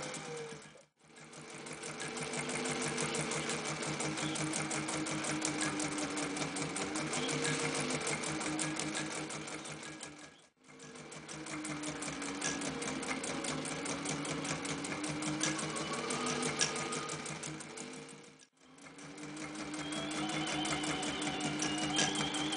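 Singer 201K2 gear-driven sewing machine with a potted motor, stitching fast through thick layers of sailcloth and leather. It sews in runs with a rapid, even stitch rhythm and stops briefly about a second in, about ten seconds in and about eighteen seconds in. The motor's tone rises and falls as the speed changes.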